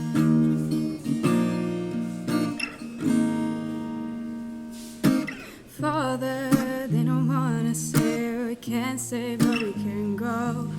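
Song intro: an acoustic guitar strummed in sustained chords, with a singing voice coming in about halfway through over the guitar.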